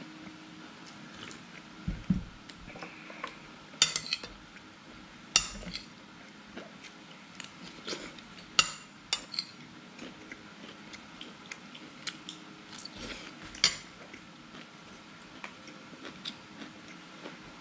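Kitchen utensils and dishes clinking and knocking at irregular intervals, a dozen or so sharp knocks, with a low thump about two seconds in.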